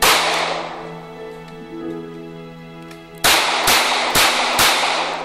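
Taurus TCP .380 ACP pocket pistol firing: one shot, then after a pause of about three seconds four more in quick succession, about half a second apart, each with a short echo.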